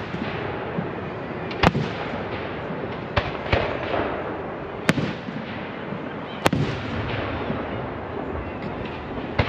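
Aerial firework shells bursting: a sharp boom every second or two, about five in all, over a steady noisy background.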